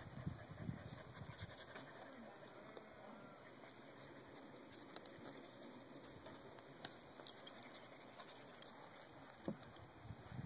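Near silence: faint outdoor background with a steady high hiss, some low rustling in the first second or so as a puppy is held, and a few soft ticks later on.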